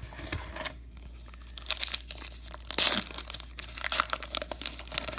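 Wrapper of a 2019 Topps Heritage Minor League baseball card pack crinkling and tearing as it is pulled open: a run of sharp crackles, loudest about three seconds in.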